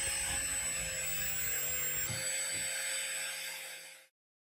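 Small rotary power tool with a buffing pad running with a steady high whine, with low scuffing as the pad works over the blue-paste-coated steel sword fitting; the sound fades out about four seconds in.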